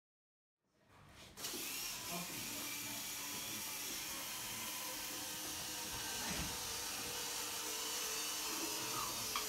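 Small wheeled robot's electric drive motors whining steadily as it drives along a taped line on the floor, coming in about a second in.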